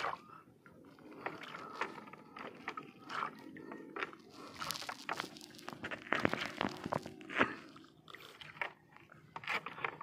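Irregular handling noise on a small fishing boat: scrapes, knocks and crackles as a longline and its catch are hauled aboard by hand. The sound is busiest in the middle of the stretch.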